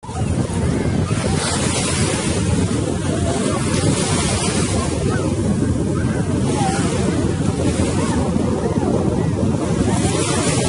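Sea waves washing in with a hiss every couple of seconds, under heavy wind buffeting the microphone with a loud, constant rumble.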